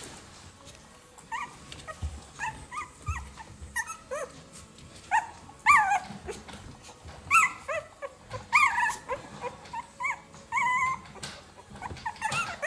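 A litter of two-week-old puppies squeaking and whimpering: many short, high calls that rise and fall, starting about a second in and coming several in quick succession at times.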